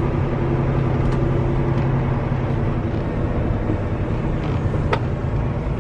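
Diesel engine of a semi truck heard from inside the cab as the truck moves slowly, a steady low drone that eases slightly after about two seconds. Two faint clicks, about a second in and near the end.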